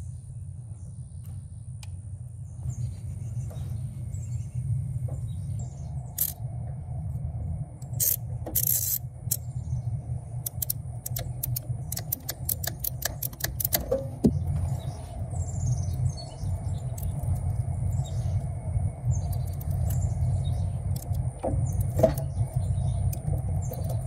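A steady low rumble runs underneath faint clicks and ticks from wire strippers working a service conductor, with a quick run of small clicks about halfway through.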